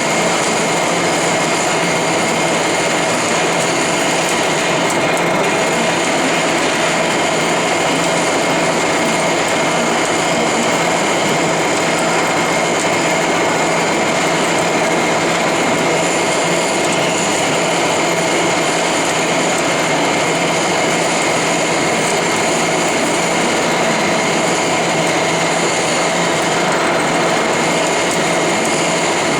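Lathe running steadily: an even machine noise with a constant high whine and a lower steady tone, unchanging throughout.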